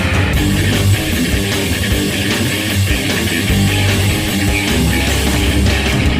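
Background rock music with loud electric guitar and bass guitar, steady throughout.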